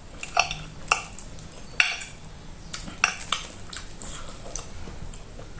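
Eating sounds: a fork clicking irregularly against a plate, mixed with chewing.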